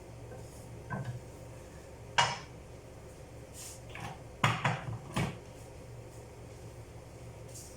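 Kitchenware clattering: a handful of sharp metal clanks from pots and utensils. The loudest is a little after two seconds in, and three come in quick succession near the middle, over a low steady hum.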